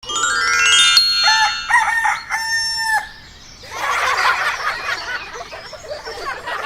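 A rooster crows: a rising first note, then short notes ending in a held note that stops about three seconds in. It is followed by a dense, busy hubbub of small bird calls and clucking.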